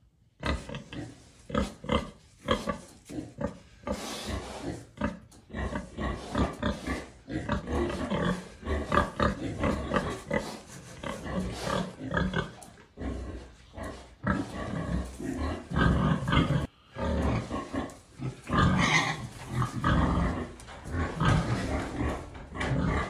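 Pigs grunting: many short grunts, one after another and overlapping, without a break.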